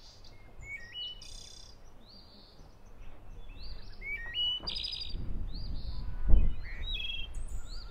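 Small songbirds chirping and singing repeatedly in short rising notes and trills. From about five seconds in, a low rumbling noise rises under them, with a single dull thump near the end that is the loudest sound.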